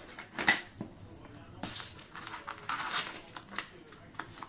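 Paper and card being handled on a work table: a few short rustles and light taps and clicks as sheets are moved and set down.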